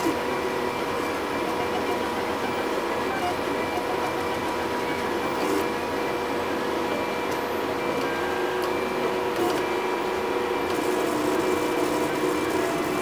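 MendelMax 3D printer running a print: its stepper motors whine in several steady tones as the print head traces the first layers, some tones dropping out and returning as the moves change.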